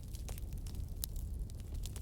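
Bonfire crackling: a few sharp pops of burning wood, the clearest about a second in, over a steady low rumble of the fire.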